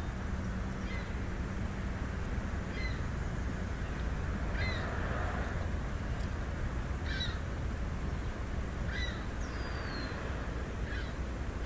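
Birds calling outdoors: short calls, each dropping slightly in pitch, come about every two seconds over a steady low background rumble.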